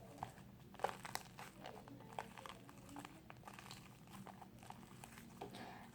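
Fluffy slime being kneaded by hand with a little Tide detergent mixed in, giving faint, scattered sticky clicks and crackles.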